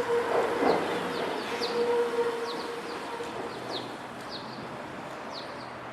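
A train on the JR Kisei Main Line fading away after passing over the level crossing, its rumble and hum dying down over the first few seconds. Small birds chirp throughout with short falling calls.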